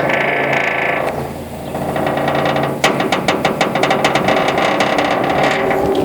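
Heavy thick-metal prison cell door slammed shut: a loud bang that rings on for about a second. About three seconds in, a fast metallic rattle of many quick knocks follows and lasts about three seconds.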